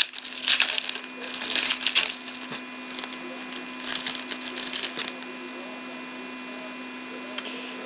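Foil wrapper of a Panini Select hockey card pack being torn open and crinkled, in several short crackling bursts over the first five seconds, then quieter rustling as the cards are handled. A steady mains hum runs underneath.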